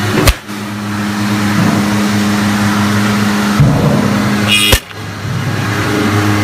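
CNC wood tenoning machine running with a steady motor hum. Two sharp clicks cut in, one just after the start and one near the end, and a short hiss comes just before the second.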